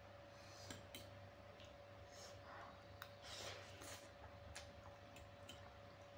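Faint eating sounds: metal forks clicking and scraping on a plate as noodles are twirled, with a soft slurp of noodles about three and a half seconds in. A faint steady hum runs underneath.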